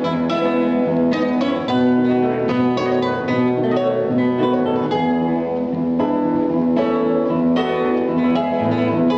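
Two classical guitars playing a duet: a continuous stream of plucked notes over held bass notes, at a steady level.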